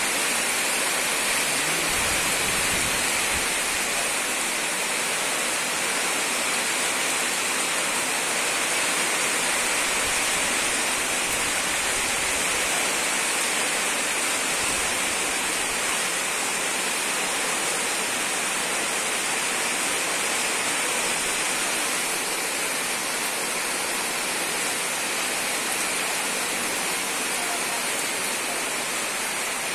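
Steady heavy rain falling, an even, unbroken hiss.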